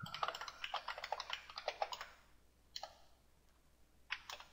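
Typing on a computer keyboard: a quick run of keystrokes lasting about two seconds, a single keystroke a little later, then another run starting near the end.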